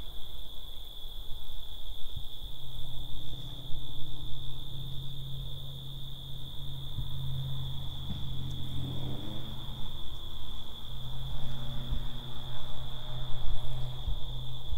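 Crickets chirping in a steady high-pitched chorus. Underneath, a low steady hum comes in about two seconds in and fades near the end.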